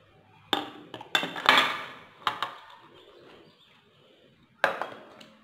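Stainless steel pot and plates clinking and knocking against each other and the table as they are handled: a few sharp knocks with short ringing in the first two and a half seconds, the loudest about one and a half seconds in, and one more near the end.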